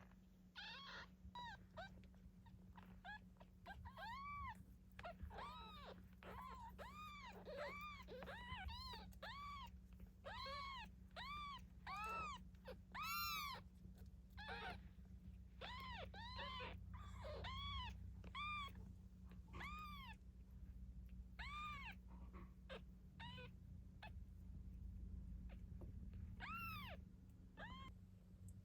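Nine-day-old kittens mewing over and over: short, high-pitched cries that rise and fall in pitch, one to two a second and sometimes overlapping. A steady low hum runs underneath.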